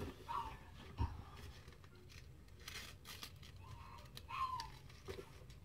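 Faint rustling and crinkling as a stick-on gift bow and a wrapped present are handled, with a soft thump about a second in. Two short faint squeaks sound, one near the start and one about four and a half seconds in.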